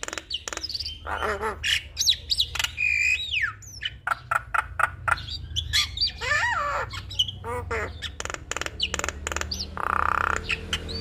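Javan myna (jalak kebo) singing a busy, varied song: rapid sharp clicks mixed with whistled notes that sweep up and down, and a harsher rasping note near the end.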